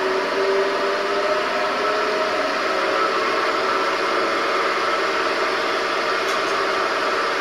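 Benchtop milling machine running steadily, a continuous motor whir with a hiss and faint whining tones.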